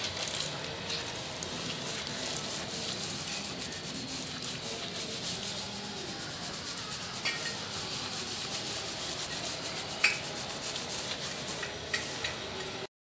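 Hands scrubbing a foaming lather of herbal bath powder into wet hair: steady wet rubbing with a few small clicks. It breaks off for a moment near the end.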